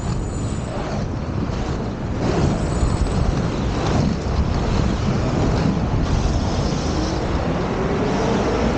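Inline skate wheels rolling on a concrete sidewalk, with city traffic going by. Near the end a vehicle's engine rises in pitch as it speeds up.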